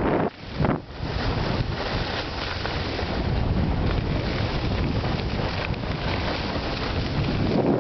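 Wind rushing over the microphone of a camera carried by a skier moving down a groomed run, with a short lull about half a second in.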